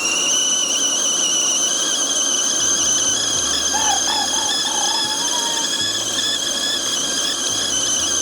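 Tea kettle whistling at the boil: one steady, high-pitched whistle that holds its pitch throughout, with a faint wavering hum about halfway through.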